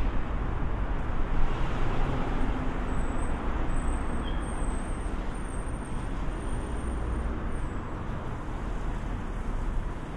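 Steady road traffic rumble, heard from inside a pedestrian underpass.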